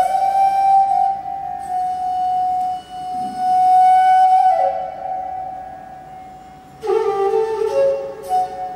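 Bansuri, the Indian bamboo flute, playing long held notes that bend slowly from one pitch into the next, with no drum strokes.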